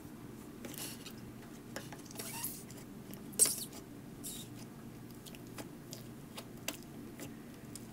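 Nickelodeon slime with black beads being squished and pressed into its jar: faint sticky crackles and small clicks, with one sharper pop about three and a half seconds in.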